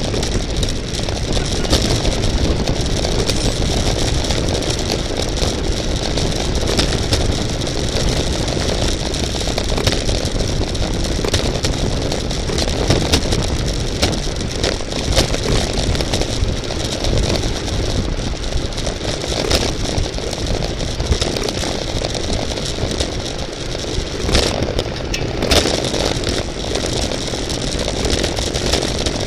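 Steady rumbling wind noise on a bicycle-mounted camera's microphone while riding at race speed, with scattered clicks and rattles from the bike.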